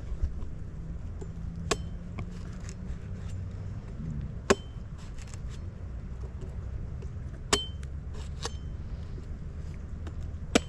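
Machete chopping a fresh coconut: about five sharp strikes a few seconds apart, some with a brief metallic ring, over a low steady rumble.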